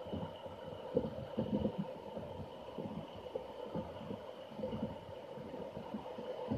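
Rowing raft on a whitewater river: a steady rush of moving water with irregular, muffled low thumps and knocks from the raft and its oars.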